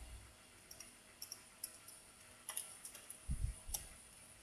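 A few faint, irregular computer keyboard keystrokes, with a soft low thump a little after three seconds in.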